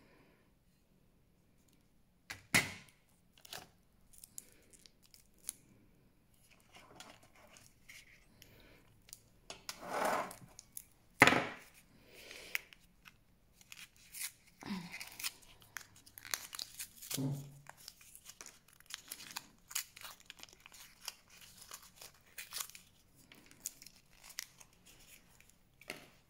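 Plastic packaging being handled and torn open: crinkling and tearing of wrapping with scattered plastic clicks and taps, and one sharp crack about eleven seconds in.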